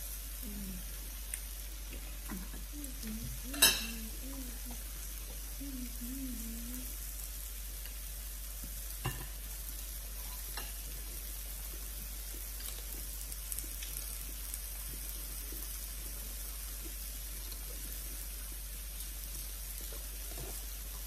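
Chicken and pork skewers sizzling steadily on an electric grill plate with a central hotpot well, with occasional clicks of utensils against the pan. A sharp clack about three and a half seconds in is the loudest sound, with a smaller one near nine seconds.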